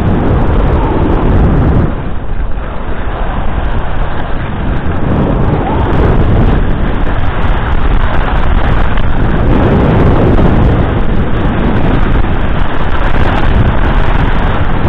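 Wind rushing over the microphone of a skier's camera during a fast run down a groomed piste, mixed with the scrape of skis on hard-packed snow. A loud, steady rumbling noise that swells and eases slightly but never stops.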